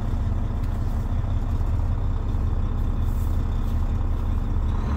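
Volvo truck's diesel engine idling with a steady low rumble, heard inside the cab; right at the end it suddenly gets louder as the gas pedal is pressed.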